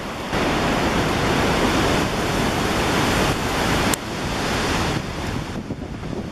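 Steady rushing noise of wind buffeting the microphone, with an uneven low rumble; it drops abruptly about four seconds in.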